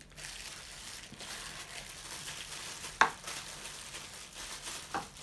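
Plastic packaging and plastic coffee-maker parts being handled, a steady crinkling rustle, with one sharp plastic click about three seconds in and a smaller click near the end.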